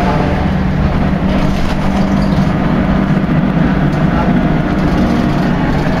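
Drivetrain of a Volvo B10BLE Wright Renown single-deck bus under way, heard from inside the saloon: a loud, steady drone sounding like a washing machine, which the owner guesses is a failed differential.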